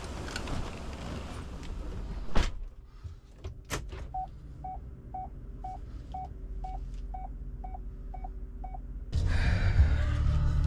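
Two solid thumps like car doors shutting, then a vehicle's warning chime beeping steadily about twice a second for several seconds. Near the end a loud low rumble comes in suddenly.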